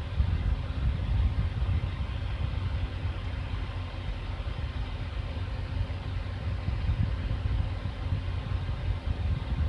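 A vehicle's engine running at a crawl, close to idle, a steady low rumble with a faint steady hum over it.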